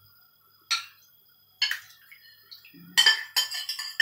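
Metal spoon clinking and scraping against a ceramic bowl as its contents are tipped into a frying pan: two single clinks, then a quick run of clinks about three seconds in.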